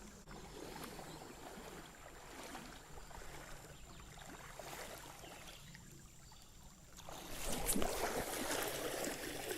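Faint, steady rush of flowing creek water. About seven seconds in, a louder rough rustling noise with a few sharp clicks comes up over it.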